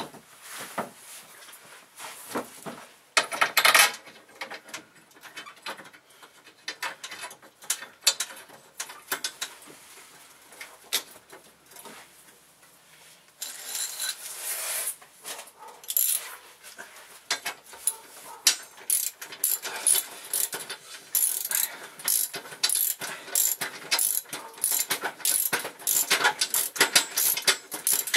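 Hand socket ratchet being worked on bolts under the minivan: fast runs of clicking from its pawl, sparse through the middle stretch and nearly continuous from about halfway through, with a louder metal clatter early on.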